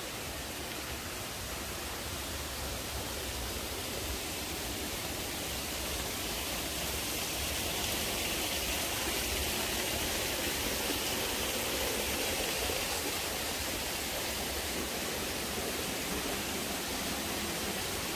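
Steady rushing of a river in a rocky gorge, with no words over it. It grows a little louder for several seconds in the middle.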